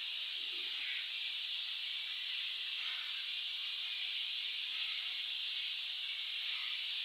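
Flour-coated chicken pieces deep-frying in hot oil in a kadhai: a steady, even sizzle.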